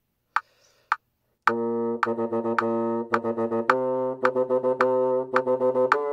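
Bassoon playing a B-flat major scale tonguing exercise at 108 bpm over metronome clicks. Two clicks count in alone, then the bassoon enters about a second and a half in. On each note it holds beat 1, tongues rapid sixteenth notes on beat 2, holds beat 3 and tongues sixteenths on beat 4, stepping up to the next scale note twice.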